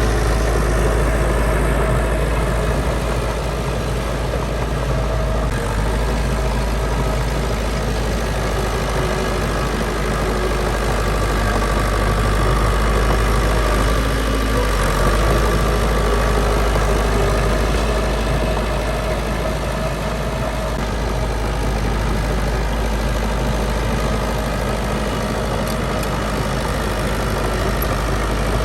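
Heavy diesel construction machine engine running steadily at low revs, a deep continuous rumble without any sudden knocks or changes.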